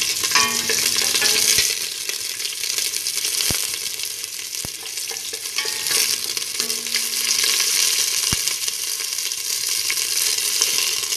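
Garlic and onion sizzling steadily as they sauté in hot oil in a stainless steel pot, with a few light knocks.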